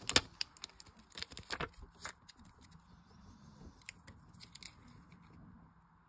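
Light clicks and taps of clear plastic stamps being handled and set onto a clear acrylic stamping block. A cluster of sharp clicks in the first two seconds, then a few fainter ticks.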